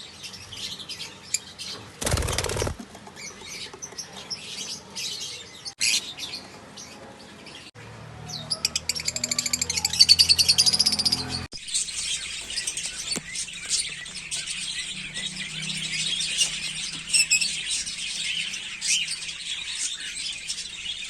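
A flock of African lovebirds chirping and chattering, with many short high calls overlapping. The calls thicken into a continuous chorus about halfway through. There is a brief rushing noise about two seconds in.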